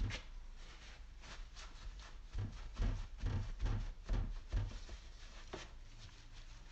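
Hands patting a raw brisket slice dry: a knock at the start, then a run of about seven soft, low thumps in the middle.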